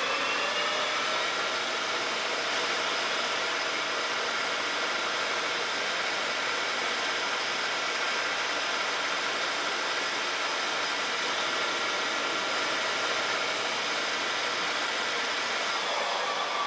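Metal lathe running with a steady motor-and-gear whine while a carbide insert takes a facing cut across the end of a metal bar. The whine rises in pitch at the start as the spindle comes up to speed and starts falling near the end as it slows.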